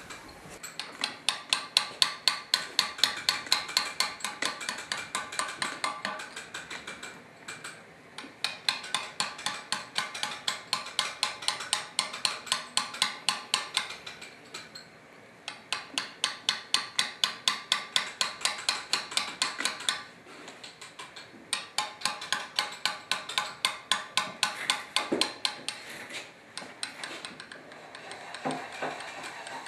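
Mallet tapping a steel chisel to cut letters into stone: quick, even strikes with a bright ring, about five a second, in runs of several seconds broken by brief pauses.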